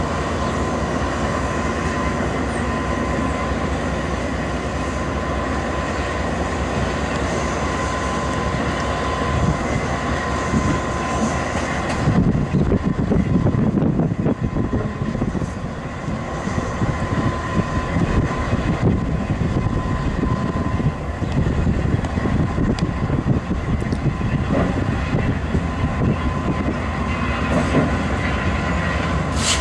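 GE AC4400CW diesel locomotive idling while it is turned on a roundhouse turntable, with a steady high whine over the engine rumble. The low rumble turns rougher and louder about twelve seconds in for a few seconds.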